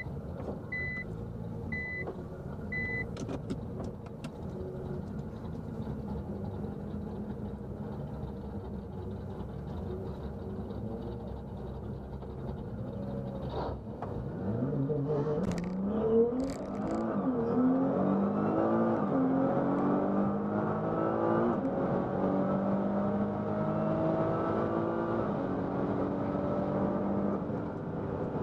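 Nissan GT-R engine heard from inside the cabin. It runs low and steady at the drag strip start line, with four short high beeps about a second apart at the very start. About halfway in it launches into a full-throttle quarter-mile pass: the engine note rises and drops back with several quick upshifts, then holds high at speed with road noise.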